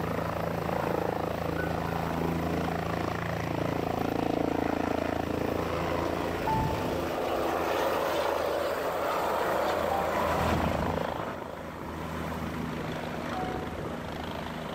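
Bell 407 helicopter lifting off and flying away: its single turbine and four-blade rotor running loud and steady, then growing fainter about eleven seconds in as it climbs off into the distance.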